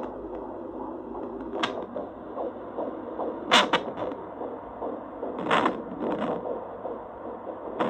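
Handheld fetal Doppler's loudspeaker at full volume, giving a steady static hiss broken by four or five loud whooshes: the sound of the baby moving and kicking against the probe, not yet its heartbeat.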